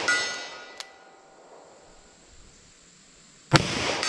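Steel target ringing from a hit near the start, with a short sharp tick a little later. A single revolver shot with hard-cast ammunition comes about three and a half seconds in, echoing through the woods, and the steel starts ringing again at the very end.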